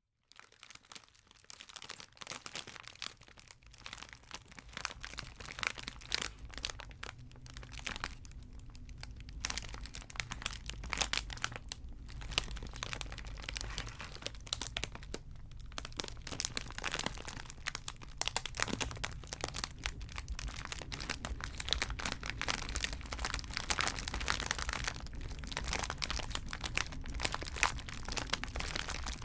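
Chocolate wrappers crinkling and crackling as they are handled, in dense, irregular bursts of small crackles.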